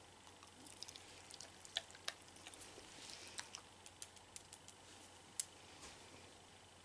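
Dog nail clippers clicking shut, a scattering of sharp clicks, the loudest about two seconds in and again past five seconds.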